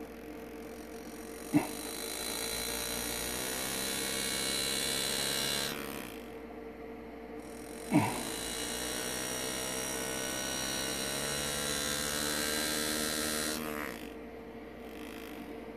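Engraving handpiece buzzing as its graver cuts into a pewter chalice, in two runs of about four and six seconds, each starting with a sharp click. A steady hum underneath.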